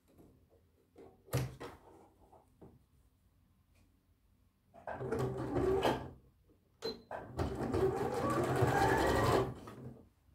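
Bernette b38 computerized sewing machine stitching a folded hem in short runs: a run of about a second some five seconds in, then a longer run of about two seconds near the end that speeds up as it goes. A sharp click comes about a second in.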